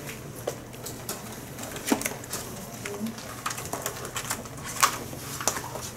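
Scattered light clicks and taps at an irregular pace, with one sharper tap near the end, over a faint steady low hum of room equipment.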